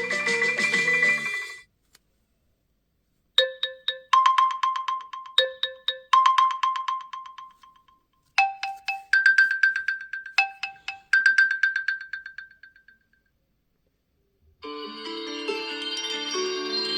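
OnePlus 11 ringtones played one after another. One ends about a second and a half in. After a short pause comes a bright chiming melody in short repeated phrases that dies away near 13 seconds. After another pause, a fuller ringtone starts near the end.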